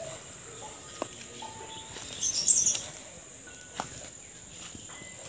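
Outdoor garden ambience: a steady high-pitched insect drone, like crickets, with short bird chirps over it. A louder cluster of high chirps comes about two and a half seconds in, and there are two sharp clicks.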